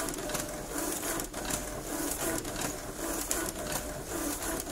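Ricoh MP C-series multifunction copier running a copy job from its automatic document feeder, feeding and printing sheets with a steady repeating beat about twice a second and light clicks.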